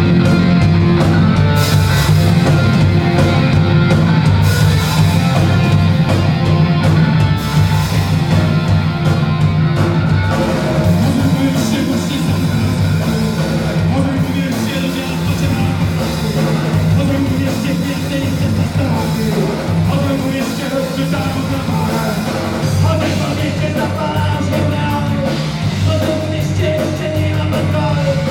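Live rock band playing loud: electric guitar and drum kit, with a male singer singing into a microphone.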